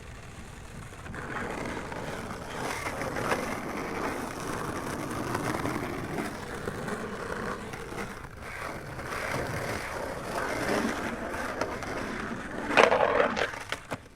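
City street ambience: a steady bed of mechanical noise with scattered clicks and scrapes, a louder clatter about 13 seconds in, then fading out.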